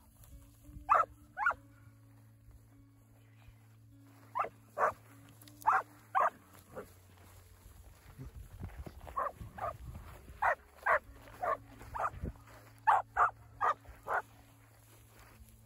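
Young hanging tree cowdog pup barking at cattle: about sixteen short, sharp barks, mostly in quick pairs, coming in spells with pauses between them.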